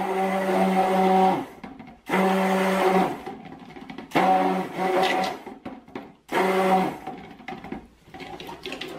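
Stick blender running in a small plastic jug of cold process soap batter, switched on and off in short pulses: four runs of about a second each with pauses between, mixing charcoal brown colourant into that portion of batter.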